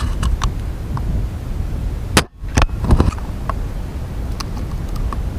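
A Novritsch SSG24 spring airsoft sniper rifle fires once a little over two seconds in, a single sharp crack, followed by a few lighter clicks. A low wind rumble on the microphone runs under it.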